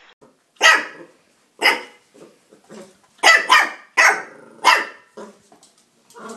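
A puppy barking: six sharp barks, two of them in quick succession, with a few softer yaps between.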